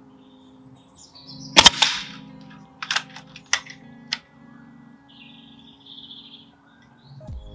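Hatsan Airmax .22 pre-charged pneumatic bullpup air rifle, silenced, firing a single shot: one sharp crack about one and a half seconds in. Three lighter clicks follow over the next two and a half seconds.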